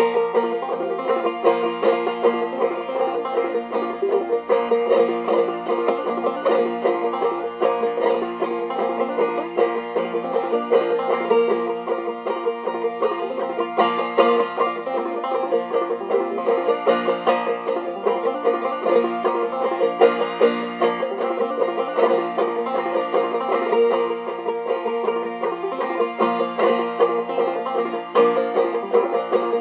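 Banjo played clawhammer style: an unaccompanied instrumental passage of steady, rhythmic plucked notes and brushed strums.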